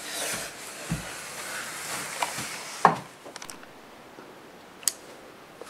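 Rustling movement with a low knock about a second in, then sharp clicks near three and five seconds over quiet room tone.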